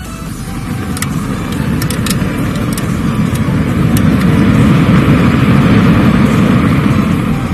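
Homemade jet fuelled by 500 match heads, burning inside a canister and blasting out a long flame: a loud, steady rushing noise that builds over the first few seconds, is loudest in the middle and eases near the end.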